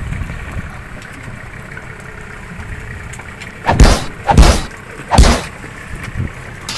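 Three heavy thumps against the boat hull, about half a second to a second apart, as a large ruby snapper is hauled over the side and aboard, over a steady low rumble.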